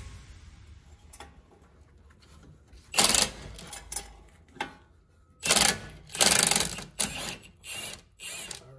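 Cordless impact wrench hammering in several short bursts, the first about three seconds in and a cluster near the end, as it works a nut loose on the front steering knuckle.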